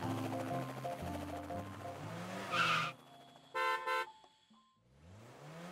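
Cartoon jingle: stepped synth music, a short tyre-screech effect about two and a half seconds in, then two quick car-horn toots near four seconds. A rising whine starts near the end.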